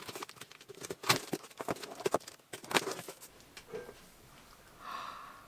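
A cardboard parcel being handled and opened: a run of sharp knocks and taps, then a short raspy scrape near the end.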